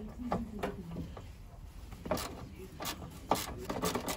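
Hands working on plastic and metal parts under a van's bonnet: a run of short clicks, knocks and rattles, sparse at first and busier from about halfway through.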